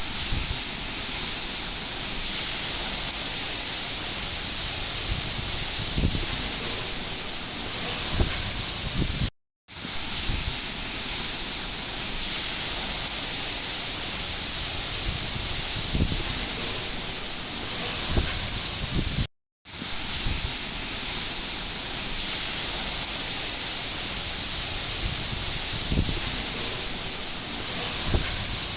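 Steady rain, a dense even hiss with a few soft low thuds from heavier drops. It drops out to silence for a split second twice, about ten seconds apart, where the recording loops.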